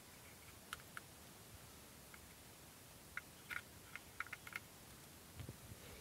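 Faint scattered clicks and light taps from hands handling a small plastic action camera and its battery, over near silence, with a couple of soft low knocks near the end.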